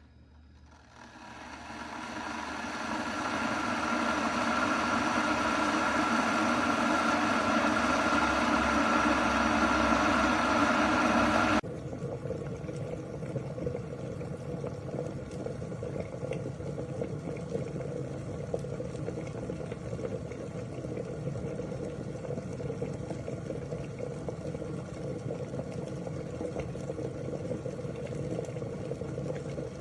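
Stainless steel electric kettle heating water: a rushing hiss and rumble builds over the first few seconds and holds loud. About twelve seconds in it cuts off abruptly and gives way to a quieter, steady rushing noise.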